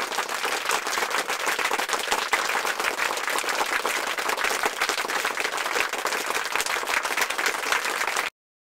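Steady applause from a crowd, many hands clapping densely and evenly, laid in as a sound effect. It cuts off suddenly near the end.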